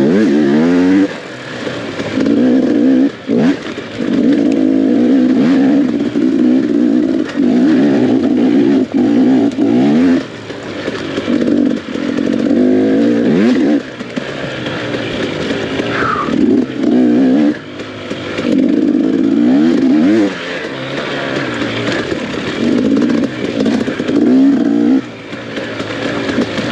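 Off-road dirt bike engine under hard throttle, revving up and backing off over and over, its pitch and loudness rising and falling every second or two as the rider works the bike through a rough, rutted trail.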